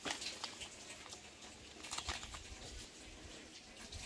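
Faint light scratching and tapping handling noises, with a cluster of small clicks and rustles near the start and another about two seconds in.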